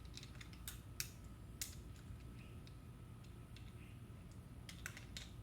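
Faint, scattered light clicks and taps of metal hand tools being handled, a few irregular ticks over a quiet low hum.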